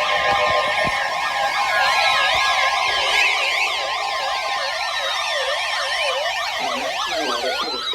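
Many electronic sirens sounding at once: layers of fast up-and-down yelping warbles over steady tones that fade out about halfway through, with several long falling glides in the second half.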